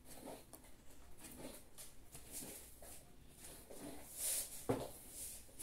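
A hairbrush drawn through long, knotted hair in repeated strokes, each a short rustling hiss, about one a second. There is a sharp knock a little before the end.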